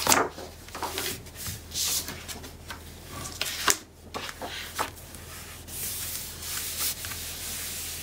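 Hands rubbing over a sheet of paper to press a glued patterned paper panel flat, then paper sheets being lifted, slid and laid down on the cutting mat, with a sharp tap a little before halfway through.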